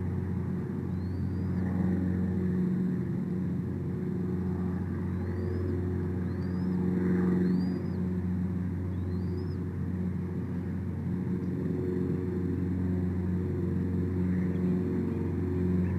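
A steady low mechanical hum with several even tones runs throughout. Over it, a small bird gives short whistled calls that rise and then dip at the top, about five of them in the first nine seconds.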